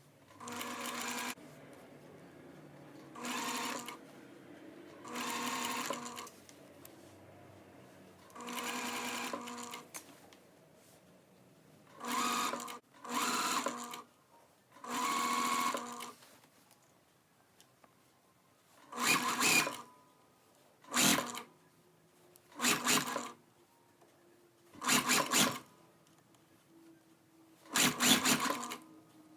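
Sewing machine stitching in about ten short runs of half a second to a second and a half, stopping briefly between runs; the later runs are louder and shorter. It is topstitching a triple-folded shirt hem.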